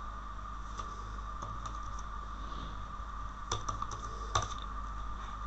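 Sparse keystrokes on a computer keyboard: a few scattered clicks, with a short cluster about three and a half seconds in and a sharper click near four and a half seconds, over a steady background hum.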